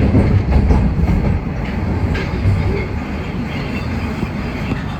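TTC Line 1 subway train running between stations, heard from inside the car: a steady low rumble with some wheel clatter on the rails, loudest in the first second.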